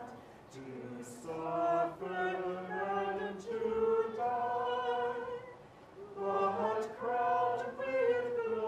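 Choir singing a slow hymn in held notes, with short breaks between phrases about two seconds in and again around six seconds.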